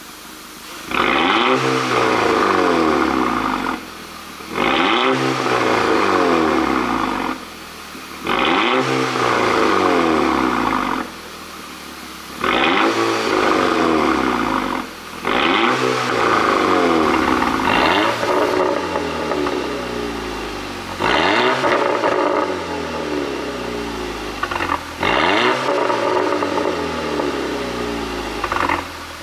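Turbocharged 2.0-litre four-cylinder engine of a tuned VW Golf 6 GTI revved hard about eight times, each time held briefly and then let fall. The exhaust pops and crackles on the overrun as the revs drop.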